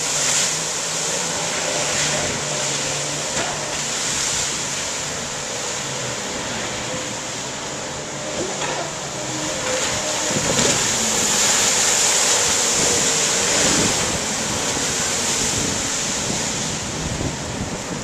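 Jet ski engines running on the river, mixed with water noise and wind on the microphone, swelling louder in the middle.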